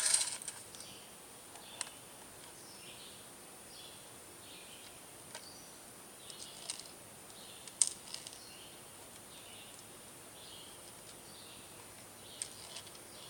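A few sharp, separate clicks, several seconds apart, as BBs are pressed one by one into an airsoft rifle magazine. Birds chirp faintly in the background.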